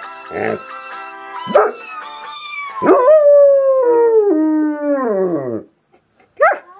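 Long-haired German Shepherd howling with its head raised. A few short howls are followed, about three seconds in, by one long howl that slides steadily down in pitch before breaking off, then a short sharp yelp near the end.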